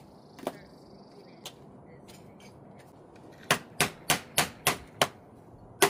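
Sharp blows on the old plastic EVAP charcoal canister as it is being broken open: six hard knocks about three a second, then one more near the end.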